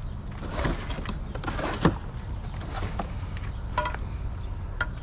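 Rummaging through a curbside trash pile: rustling and a few light knocks and clicks as junk is shifted around, over a steady low rumble.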